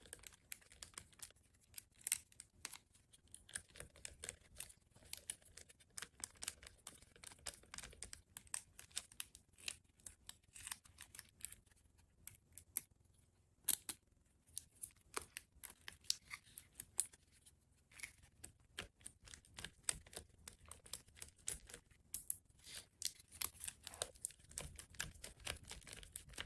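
Faint, irregular clicks and rustling of hands working on electrical wiring, handling wires and plug-in connectors while hooking up an indicator-light lead on an electric AC compressor's wiring harness.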